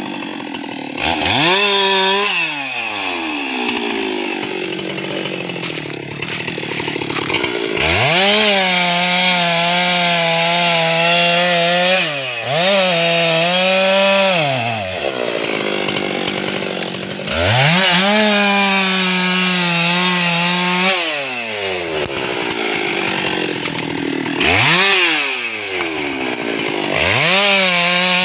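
Husqvarna 390 XP two-stroke chainsaw cutting through a felled teak log. The engine revs up about six times, holds high while the chain is in the wood, then drops back between cuts.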